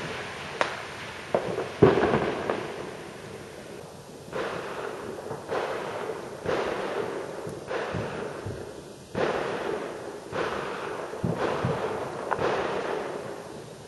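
Distant gunshots echoing across a neighbourhood: a few sharp cracks in the first two seconds, the loudest about two seconds in, then about eight more reports roughly a second apart, each trailing off in a long rolling echo.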